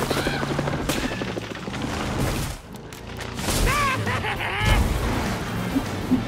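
Cartoon action sound effects over background music: a fast clatter of knocks and bangs for the first couple of seconds, then a wobbling, warbling effect and a low thump a few seconds in.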